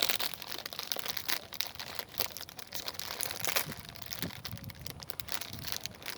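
Plastic snack bag of candy-coated popcorn crinkling as it is handled, a dense run of irregular sharp crackles.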